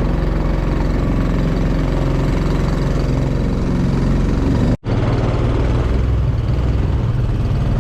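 Small boat's outboard motor running steadily, with a brief dropout near the middle.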